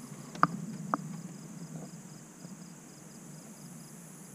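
Insects chirping steadily around a pond, a high pulsing chirp several times a second over a constant high drone. Two light clicks in the first second.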